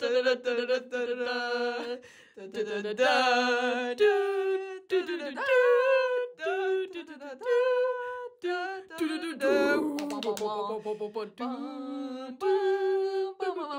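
Wordless a cappella singing of a tune, sustained notes of about a second each that change pitch, with short breaks between phrases.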